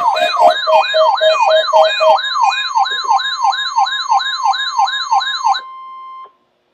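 Electronic siren-type alarm sweeping down in pitch about three times a second, with a second pulsing tone under it for the first two seconds, over the NOAA Weather Radio warning alarm tone. The siren cuts off suddenly after about five and a half seconds, leaving the steady, fainter single alert tone, which stops about half a second later.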